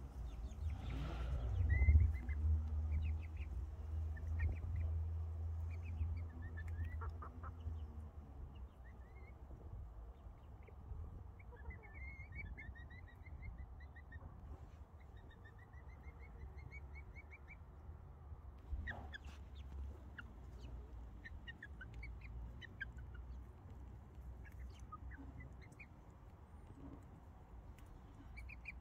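Bantam chickens softly clucking and chirping as they forage, with many short, high calls scattered throughout. A low rumble is loudest about two seconds in and fades out after about eight seconds.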